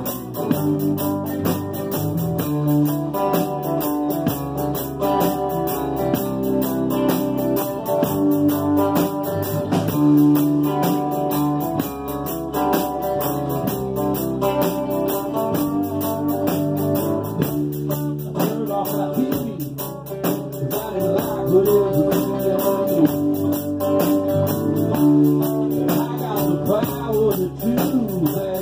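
Live band music: acoustic guitars strumming over a bass guitar, with a steady rhythm.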